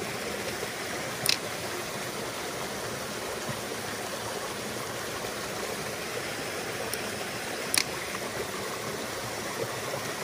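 Small mountain stream running over rocks and little cascades, a steady rush of water. Two brief sharp clicks sound over it, one about a second in and one later on.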